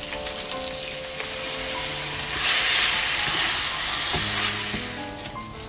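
Rice sizzling as it fries in butter and olive oil in a stainless steel pan, stirred with a wooden spoon: the rice is being toasted for risotto. The sizzle grows louder for about two seconds midway.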